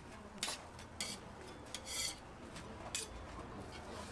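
Metal tongs and a spatula scraping and clicking against a flat steel griddle in several short strokes, roughly one a second.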